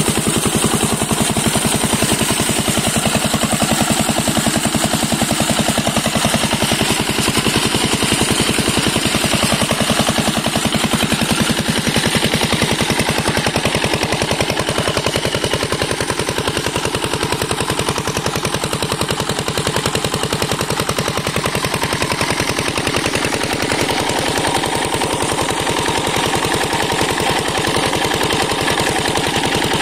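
Single-cylinder stationary diesel engine running steadily under load as it drives a centrifugal irrigation pump, its rapid, even firing knocks going on without a break. Water gushes from the pump's discharge pipe under the engine sound.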